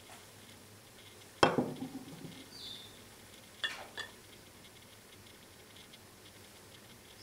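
Steel hunting knives being handled against each other on a wooden table. There is one sharp metal clack with a brief ring about a second and a half in, then two lighter clicks about two seconds later.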